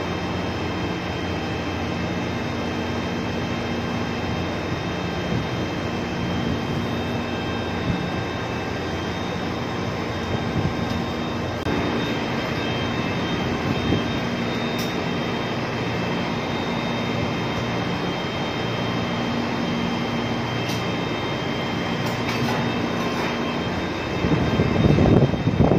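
Steady mechanical drone of a ship's machinery on deck, with a low steady hum under it. Near the end, loud irregular low rumbling comes in over it.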